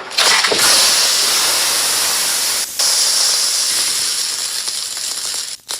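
Loud steady hiss with a brief break about three seconds in, cutting off abruptly near the end.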